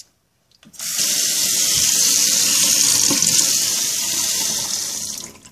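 Faucet running into a sink: the water comes on about a second in, runs steadily for about four seconds, and fades away near the end.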